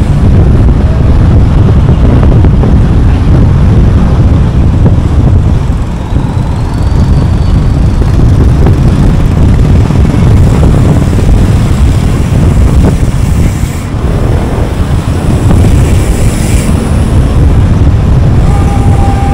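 Steady rumble of road and wind noise from a car driving at speed on a highway, heavy in the low end.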